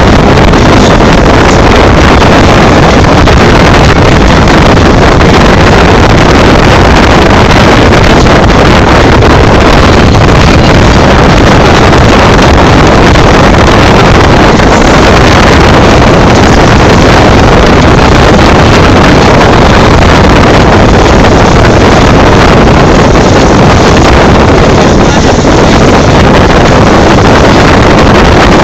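A boat's engine running steadily under way, so loud that the recording overloads, mixed with wind buffeting the microphone.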